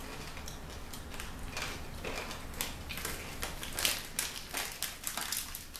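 Irregular small crackles and clicks from snacks being handled and eaten, with no regular rhythm.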